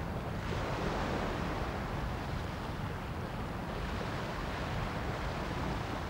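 Steady rush of wind buffeting the microphone, with a low rumble, over the wash of choppy, whitecapped sea.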